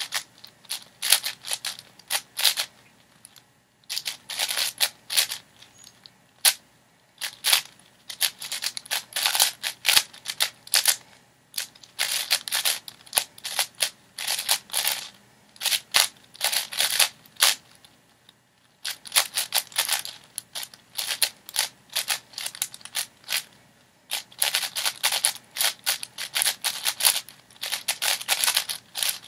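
Plastic 6x6 speedcube being turned rapidly by hand: bursts of fast clicking layer turns, broken by a few short pauses.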